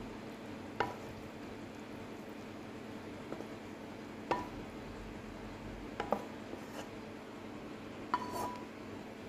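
Light clinks of tableware on a ceramic plate, four short ringing taps a couple of seconds apart, one of them a quick double, over a steady low hum.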